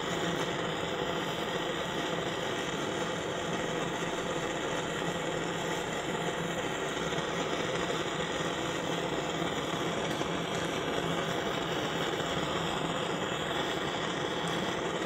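Valor Ventas blowtorch burning steadily, its flame heating a 3D printer's nozzle and heat block to burn out clogged filament.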